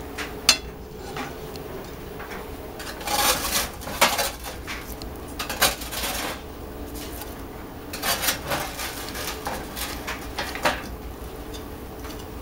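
Metal spatula scraping and clinking against a metal baking sheet and a ceramic plate as baked potatoes are lifted off the tray and set down. The sounds come as a sharp click about half a second in, then several separate bunches of scrapes and knocks.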